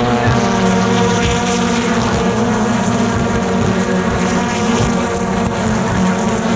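British Touring Car Championship cars' 2-litre turbocharged four-cylinder engines running with a steady, unbroken engine drone.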